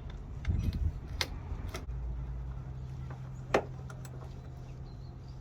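Scattered clicks and knocks of hand tools and bolts as a plastic mud flap is fastened to a pickup's wheel well, with one sharp click about three and a half seconds in, over a steady low hum.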